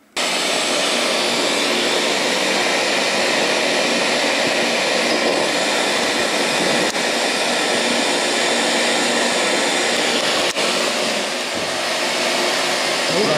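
Spirit box (ghost box) radio scanning through stations: a loud, steady hiss of static that starts abruptly, with two brief dropouts in the second half.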